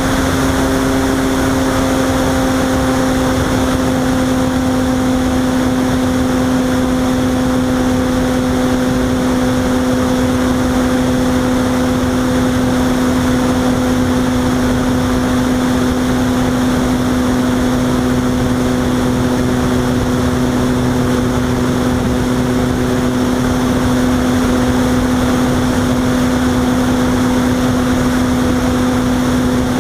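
Robbe Arcus Sport RC model glider in flight, heard from its onboard camera: a steady hum holding one pitch over an even rush of airflow noise.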